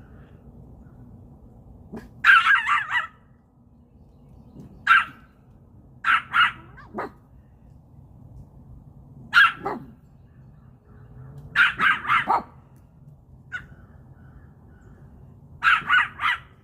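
A dog barking in short bursts of one to four barks, a few seconds apart, over a faint steady low hum.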